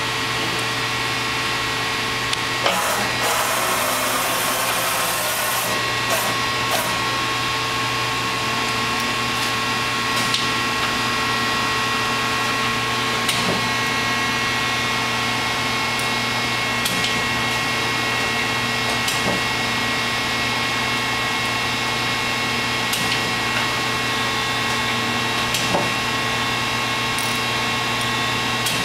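Fortune TNS-5 CNC lathe running: a steady machine hum with several constant whining tones. About three seconds in, a hissing rush lasts about three seconds. Scattered clicks and clunks come as the tool turret moves.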